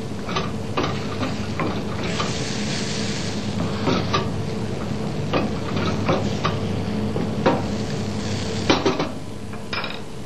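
Wooden spoon stirring a simmering tomato and demi-glace sauce in a metal sauté pan, scraping and knocking against the pan at irregular moments while the sauce sizzles. The loudest knocks come near the end.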